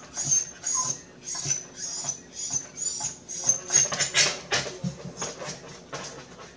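A dog chewing and smacking on food close to the microphone, about three wet chews a second, with a louder crunching stretch about four seconds in.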